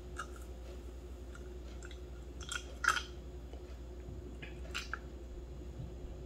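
Faint pouring of 3% hydrogen peroxide from a large plastic bottle into a small cup: a few soft ticks and splashes, the loudest about three seconds in, over a low steady hum.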